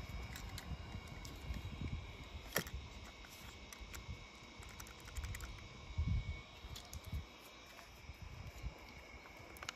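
Faint scattered clicks and light taps of a small die-cast toy car being handled against a plastic tub and a tabletop, with one sharper click a few seconds in.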